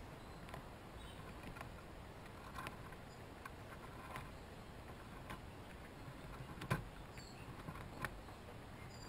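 Chipmunks shucking corn: scattered small clicks, taps and crackles as kernels are pulled and gnawed, with a sharper tap about two-thirds through and another near the end.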